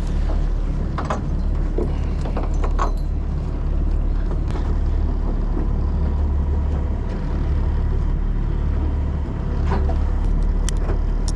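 A fishing boat's engine running with a steady low hum, with scattered short clicks and knocks over it.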